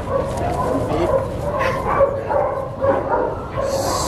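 A female Belgian Malinois on a leash whining and yipping continuously in a wavering, high-pitched voice. A steady hiss joins near the end.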